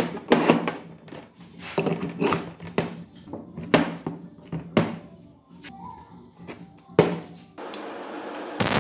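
Background music, with metal parts knocking and clinking against a steel workbench as a CV-joint axle shaft is handled and seated in bearing housings.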